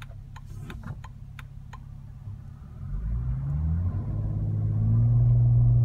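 Car engine idling, then from about three seconds in revving up as the automatic vehicle pulls away from a stop. The note rises in pitch and gets much louder, then holds steady near the end. A few light clicks sound in the first two seconds.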